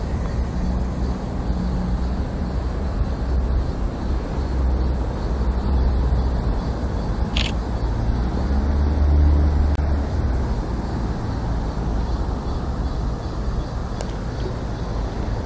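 Steady rush of a flowing stream, with low rumbling wind on the microphone. About seven seconds in there is one short click from a phone camera shutter.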